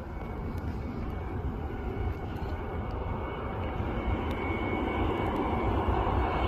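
Twin-engine jet airliner on final approach with its landing gear down: a steady jet engine rumble with a faint high whine, growing steadily louder as the aircraft comes closer.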